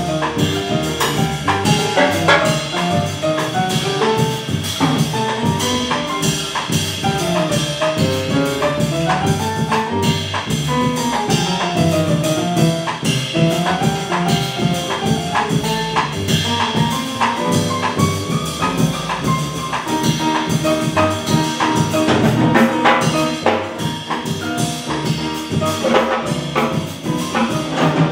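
Live Latin-jazz rumba played by a small band: grand piano carrying the melodic lines over upright bass and drum kit, with the tenor saxophone coming in near the end.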